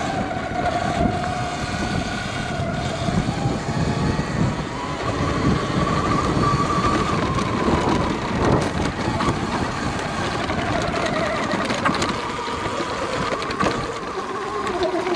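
Sur Ron X electric dirt bike riding over a dirt trail: the motor and drive whine rise in pitch around the middle, then fall again, over steady rough tyre noise on the dirt and wind on a helmet-mounted microphone.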